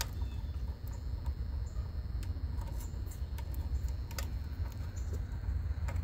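Scattered light clicks and small plastic rattles of low-voltage control wires and wire nuts being handled, over a steady low rumble.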